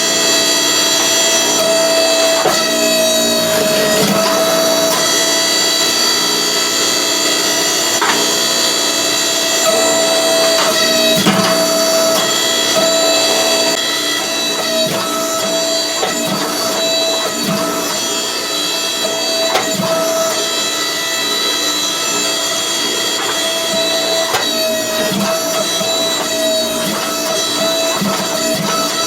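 Hydraulic forging press running: a steady motor and pump whine that strengthens at intervals as the press loads, with scattered short knocks.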